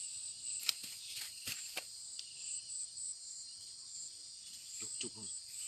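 Steady high-pitched insect chorus, with a few sharp clicks in the first two seconds.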